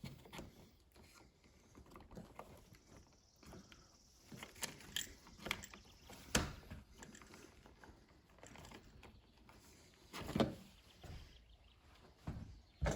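Stiff electrical wires and a dimmer switch being pushed into a wall electrical box: scattered faint scrapes, clicks and knocks, the sharpest knock about six seconds in.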